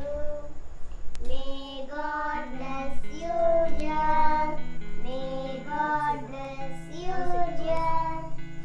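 Children singing a birthday song over musical accompaniment, the sung notes held and changing about every half second above steady low accompanying notes.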